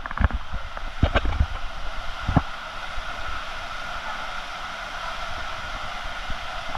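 Steady rush of a waterfall's falling water, with a few dull knocks in the first two and a half seconds.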